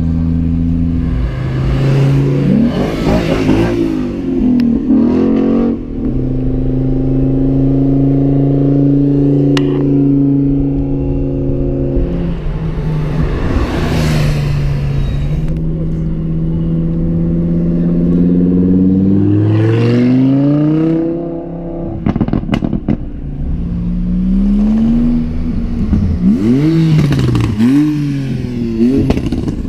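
Porsche 911 flat-six engines accelerating hard one car after another. The pitch climbs and drops back with each gear change. Sharp exhaust pops come a little past the middle, and quick repeated revs near the end.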